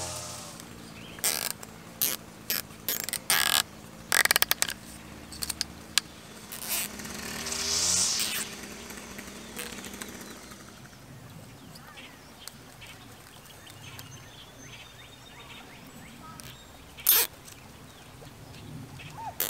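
Zip ties and plastic deer netting being handled and fastened to a metal conduit gate post: scattered short clicks and rustles, bunched in the first several seconds with one more sharp click near the end. A low steady hum sounds faintly behind them and stops about eight seconds in.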